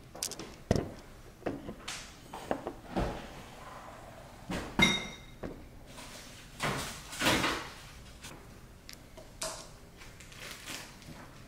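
Utensils knocking and scraping against a ceramic bowl while food is mixed and topped, with scattered clicks and one clear ringing clink about five seconds in.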